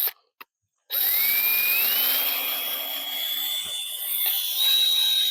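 Power drill driving a screw into a tree: a brief trigger blip, then about a second in the motor spins up with a rising whine and runs for several seconds, its pitch stepping up once more near the end.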